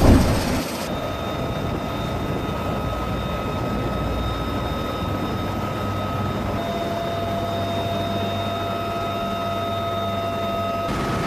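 UH-1Y Venom helicopter running, its twin turboshaft engines and rotor making a steady loud rumble with high whines, heard from inside the open cabin. A brief loud thump at the very start is the loudest moment.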